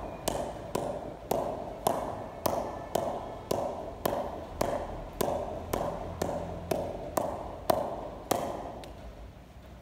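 A red leather cricket ball bounced repeatedly on the face of a wooden cricket bat: a sharp tap with a short ringing tone, about two a second and evenly paced, stopping near the end.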